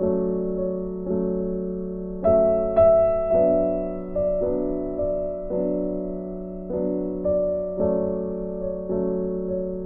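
Background music: soft piano or electric piano playing slow, sustained chords, each struck and left to fade.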